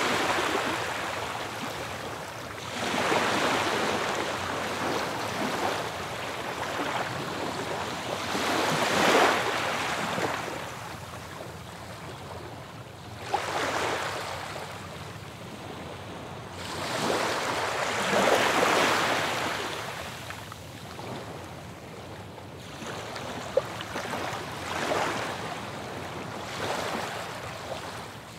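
Ocean surf breaking on a beach: waves wash in and draw back, the rush swelling and fading every few seconds.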